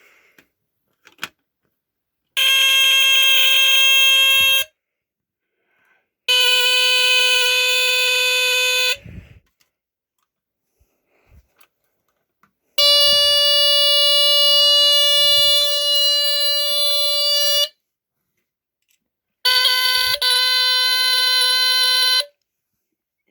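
Smoke alarms set off one at a time: four separate steady alarm tones, each lasting about two to five seconds, with short quiet gaps and small clicks between them.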